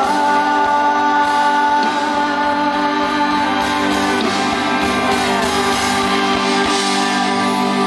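Live band music with a male singer holding long notes into a microphone; he stops singing near the end while the band keeps playing.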